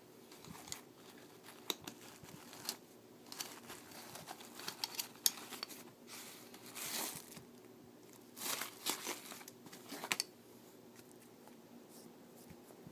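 Handling noise from gear being picked up and moved: scattered clicks and short rustling scrapes, busiest in the middle, dying away about two seconds before the end.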